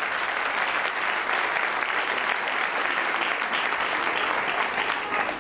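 Audience applauding, a steady dense clapping that begins to die down at the very end.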